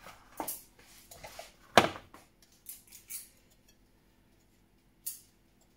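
Green plastic egg slicer with metal cutting wires handled over a bowl: five sharp clicks and knocks, the loudest about two seconds in.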